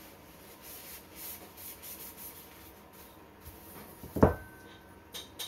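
Paper towel rubbing over the steel barrel of a .45 caliber black powder pistol, faint and even, then a single sharp knock about four seconds in as the barrel is set down on the wooden bench, with a brief ring after it.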